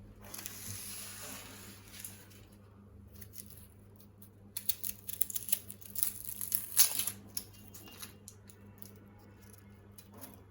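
Rustling and crinkling of something being handled, with a soft rustle at first and then a few seconds of sharp crackling and clicking in the middle, over a steady low hum.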